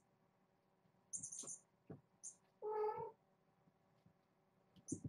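A kitten meows once, a call of about half a second near the middle. Around it come a few soft low thumps and brief high ticks as kittens jump and clamber on carpeted cat trees, with a cluster of thumps near the end.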